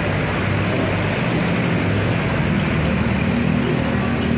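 Steady street traffic noise, with motorcycle engines running as they pass on the road.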